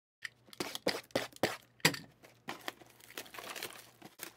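Cardboard trading-card boxes being handled, with a string of sharp taps and knocks. About two and a half seconds in, packaging crinkles and tears for over a second.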